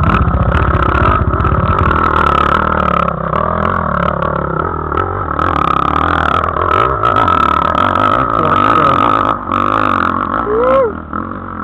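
Dirt bike engine running hard under load as it climbs a steep, rocky hill. Its deep low rumble is strongest at the start and weakens as the bike pulls away up the slope, and the sound gets quieter near the end.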